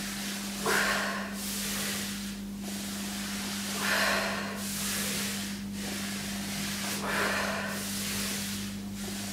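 Cloth towels sliding back and forth over a wooden floor under the hands, a rhythmic swishing rub, with a heavier stroke about every three seconds.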